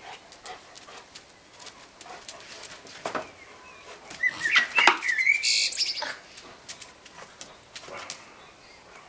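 A dog making excited high-pitched whines and yips as it jumps and snaps at soap bubbles; the calls are loudest about four to six seconds in. Scattered sharp clicks run through it.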